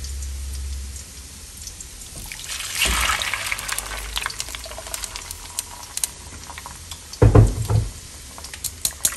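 Blended tomato salsa pouring from a blender jar through a wire-mesh strainer into a glazed clay cazuela, an even splashing pour that starts about three seconds in. A short heavy thump comes a little after seven seconds.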